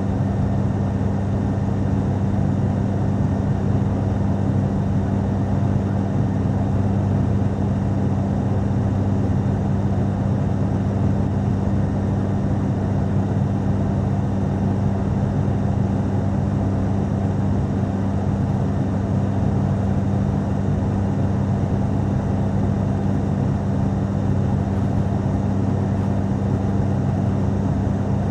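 Steady cabin drone of an ATR turboprop airliner: a constant low propeller hum over an even rush of air and engine noise, unchanging throughout.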